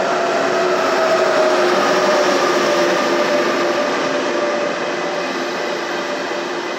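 ÖBB Railjet train rolling past along the platform: steady rolling noise of the coaches with a whine that slowly falls in pitch, loudest a second or two in and easing off toward the end.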